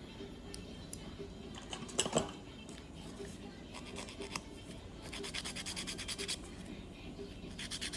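Scratchy rubbing strokes on a fingernail during manicure work, with a rapid, even run of strokes about five seconds in and a louder rustle about two seconds in. Faint background music underneath.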